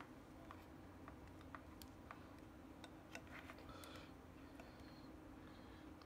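Near silence: a few faint, scattered clicks from a tablet and a USB cable being handled and plugged in, over a low steady hum.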